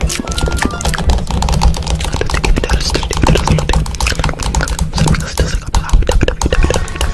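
Heavily distorted, effects-processed logo jingle audio: dense crackling clicks over a low buzzing drone, with a few short beeping tones in the first second.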